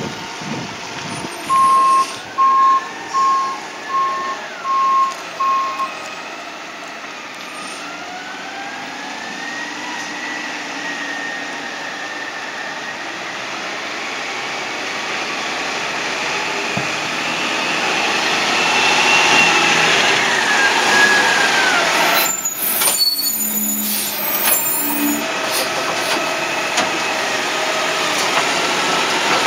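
Garbage truck, a 2021 Peterbilt 520 with a New Way Sidewinder side-loader body: its reversing alarm beeps six times, then the engine runs with rising and falling pitch and grows louder as the truck pulls up. A few sharp knocks come about three quarters of the way through, as the automated arm begins working.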